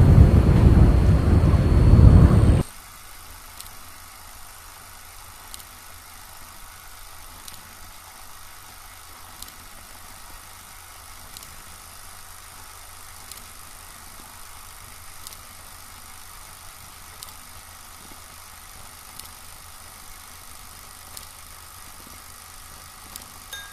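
A loud, dense rumbling noise that cuts off abruptly under three seconds in, leaving a quiet steady hum with a faint click about every two seconds.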